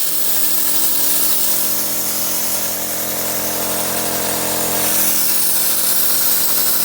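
CNC plasma cutter's arc cutting steel plate: a loud, steady hiss with a steady machine hum underneath, the hiss growing a little louder about five seconds in.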